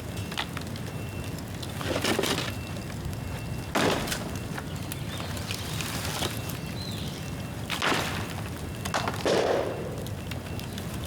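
Bamboo bonfire crackling, with about four loud sharp pops spread through the stretch, the bang of bamboo bursting in the heat.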